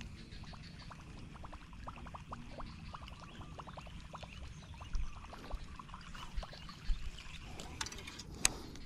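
Outdoor swamp ambience: a low rumble of wind on the microphone with a scatter of small quick clicks, and one sharp click about eight and a half seconds in.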